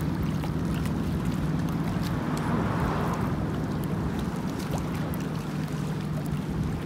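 Outdoor waterside ambience: wind and choppy open water, with a steady low hum running underneath that cuts off near the end.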